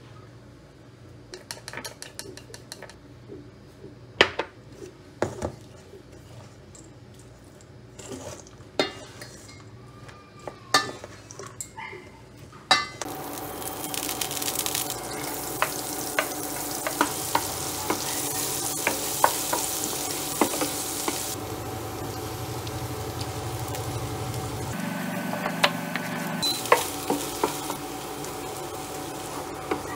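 Sharp clicks and taps of eggshell against a small glass bowl as eggs are cracked and separated. About thirteen seconds in, butter hits a hot nonstick frying pan and sizzles steadily, with the taps and scrapes of a wooden spatula stirring in the pan.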